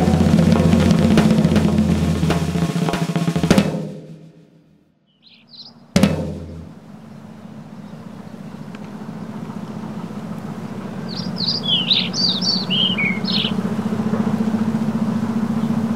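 The song's closing drumming, a drum roll with snare and bass drum, fades out about four seconds in. After a short near-silence, a sudden hit at about six seconds leads into a steady low hum that slowly gets louder, with a short run of bird-like chirps around the middle.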